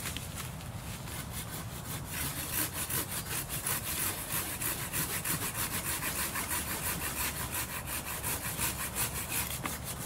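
Hand saw cutting through a branch with quick, regular back-and-forth strokes, which grow stronger about two seconds in.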